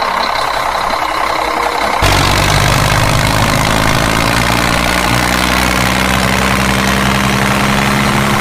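Tractor engine sound idling steadily at a low, even pitch. It cuts in abruptly and louder about two seconds in, replacing a fainter engine-like hum. It is an added sound effect, since the tractors shown are toys.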